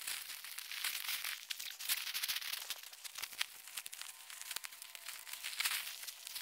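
Leafy kale plants rustling and crackling as they are pulled up by the roots and gathered into an armful: a continuous run of crinkling leaves and small snaps.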